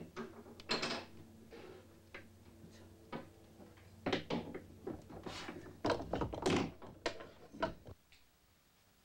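Wooden knocks and clacks of a pear-wood ink-stick (sumi) mould being handled and fitted together during moulding, about a dozen irregular strokes, stopping near the end.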